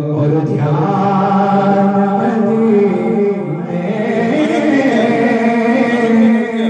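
A man chanting a naat, an Urdu devotional poem, in long held notes that glide up and down in pitch.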